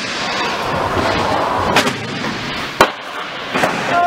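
Skateboard wheels rolling on a concrete floor with a steady rumble, broken by three sharp clacks of the board on the ground about two, three and three and a half seconds in.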